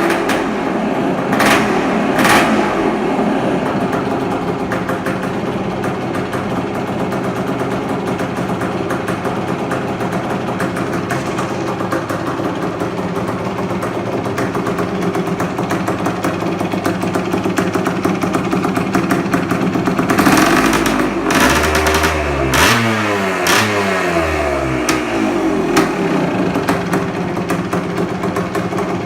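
Yamaha IT250H two-stroke single-cylinder engine running after a top-end rebuild, mostly at a steady idle. It has two short bursts near the start, and is revved hard about twenty seconds in, with the revs falling back to idle over the next few seconds.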